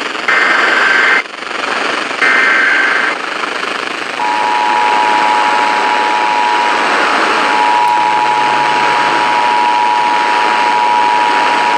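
Emergency Alert System signal received over a noisy broadcast: two short screeching SAME data header bursts, then about four seconds in the steady two-tone EAS attention signal starts and holds, all under a hiss of static. The bursts and the attention tone announce an incoming alert.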